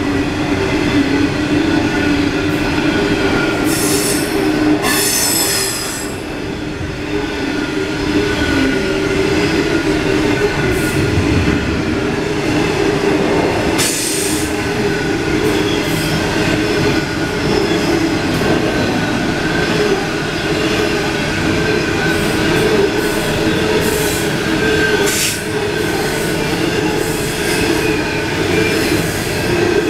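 Coal train hopper wagons rolling past at close range: a steady, loud rumble of wheels on rail with drawn-out wheel squeal, and short high-pitched screeches a few times.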